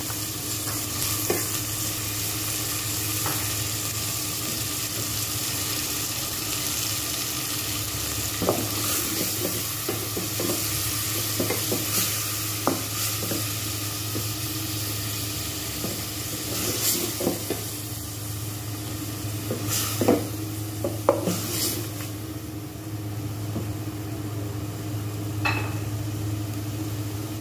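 Shredded chicken and tomato paste sizzling in hot oil in a steel pot, stirred with a wooden spatula that scrapes and knocks against the pot. The knocks come mostly in the middle part, loudest twice near the two-thirds mark.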